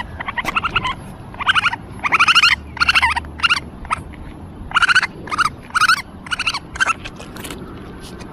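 An animal giving a rapid series of shrill, wavering calls, about a dozen in seven seconds, the calls stopping near the end.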